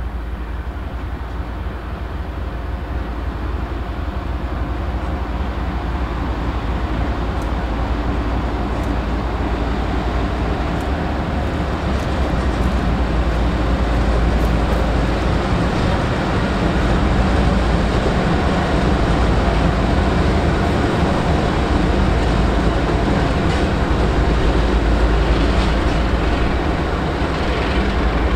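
GE diesel-electric locomotives hauling a train: a steady low diesel rumble with rail noise, growing somewhat louder over the first half.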